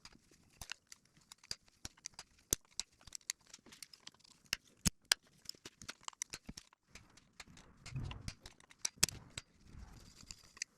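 Vise-grip locking pliers being clamped onto a broken exhaust manifold bolt and worked to turn it out: a string of irregular sharp metal clicks, with a few heavier knocks near the end.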